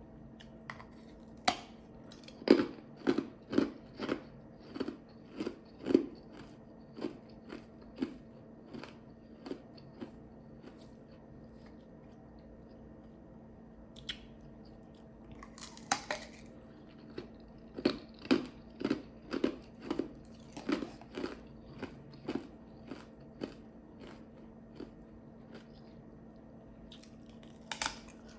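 Ice chips being bitten and crunched in the mouth: runs of sharp crunches, two or three a second, that stop for a few seconds midway and then start again.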